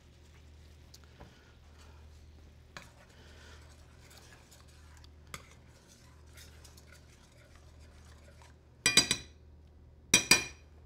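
Metal utensil working in a stainless steel sauté pan of sauce: faint light taps and scraping over a steady low hum, then two loud, ringing metal clanks about a second apart near the end.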